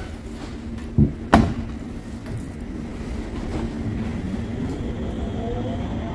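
Steady low running rumble inside a Cologne Stadtbahn light-rail car, with two sharp knocks about a second in. Near the end a faint rising whine comes in as the car speeds up.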